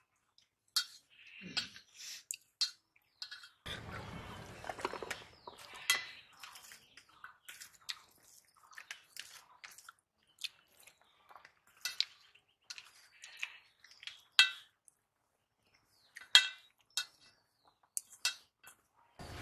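People eating rice by hand from stainless steel plates: scattered light clicks and scrapes of fingers and rice against the metal plates, with a longer rustling noise about four seconds in.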